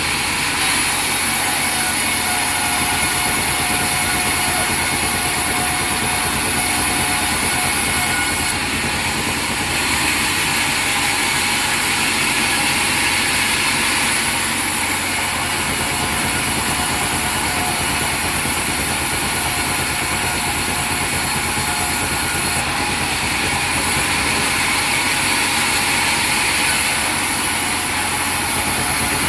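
Sawmill machinery running steadily and loudly, a dense high-pitched hiss and whine with no break.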